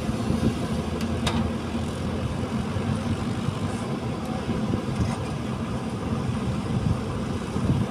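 JCB 3DX backhoe loader's diesel engine running steadily under load as the backhoe arm digs soil from a trench, with two short clicks about a second in.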